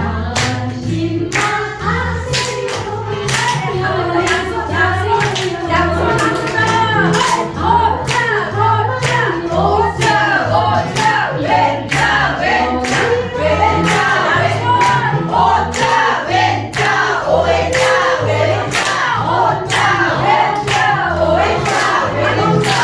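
A sung song with backing music and a steady beat, with body-percussion claps and slaps landing in a regular rhythm over it.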